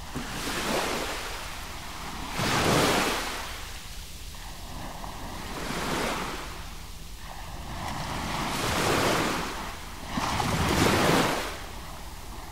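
Ocean waves breaking on a beach: five surges of surf swell and fall back, about every two to three seconds, over a steady wash.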